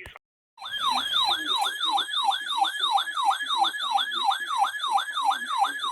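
Electronic yelp-style siren alert tone, a falling pitch sweep repeating about three times a second, starting about half a second in.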